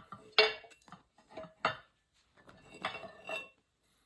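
Metal dumbbell weight plate and handle parts clinking and clanking against each other as they are handled and fitted together: about half a dozen separate knocks with short ringing.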